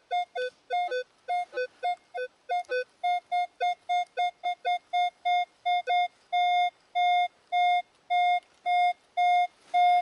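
Minelab Equinox 600 metal detector beeping as it is swept over a target. Short beeps first alternate between a lower and a higher tone, then settle into a run of repeated higher-pitched beeps that grow longer toward the end: a decent target signal.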